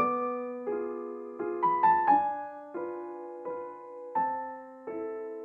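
Slow background piano music: single notes and soft chords struck one after another, each ringing and fading away.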